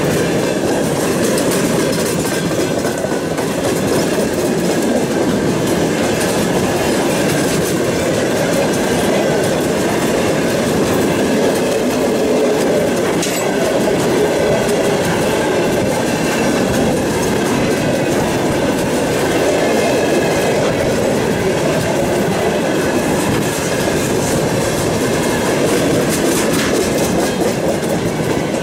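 Freight train of railway tank cars rolling past close by, its wheels running on the rails with a loud, steady noise throughout.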